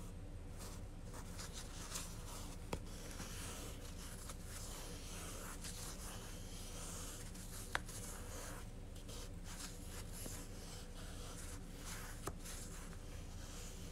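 Soft scratchy rustle of yarn being wound by hand around a baseball, with three short clicks spread through it.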